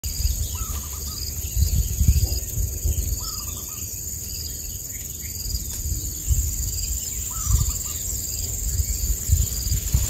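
Steady high-pitched drone of insects such as crickets, with a short bird chirp repeated about three times. Uneven low gusts of wind rumble on the microphone and make up the loudest part.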